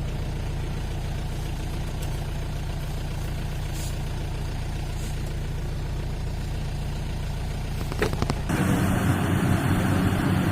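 Rice combine harvester's diesel engine running steadily. About eight seconds in come a few clicks, then the sound turns suddenly louder and rougher.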